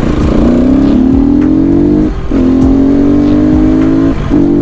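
300cc motorcycle engine accelerating hard, its pitch climbing, with two brief drops in sound about two seconds in and near the end as the rider shifts up a gear.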